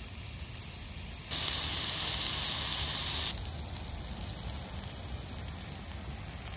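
Steaks sizzling on a Blackstone gas flat-top griddle: a steady hiss that gets louder for about two seconds, starting about a second in, then drops back.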